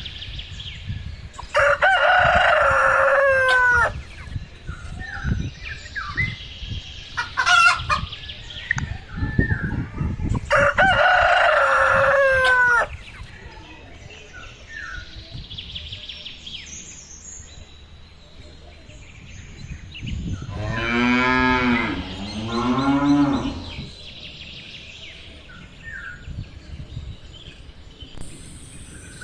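Farm animal calls: a rooster crows twice, each crow about two and a half seconds long. Near the end a cow moos twice, with small bird chirps scattered between the calls.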